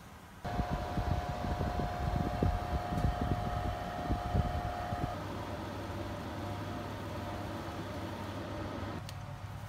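A Frigidaire oven running with a steady mechanical hum. It starts abruptly about half a second in, with an irregular low rumbling over the first few seconds.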